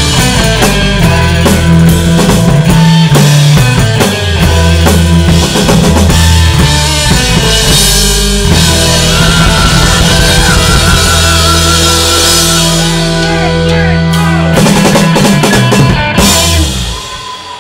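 Live rock band playing: drum kit, electric bass, electric guitar and keyboards. A run of drum hits comes near the end as the song closes, then the bass cuts off and the music dies away.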